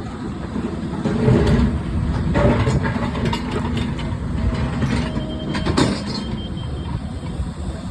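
Excavator running while it digs, its engine a steady low rumble, with several sharp metallic clanks and scrapes, the clearest about two and a half seconds in and near six seconds in.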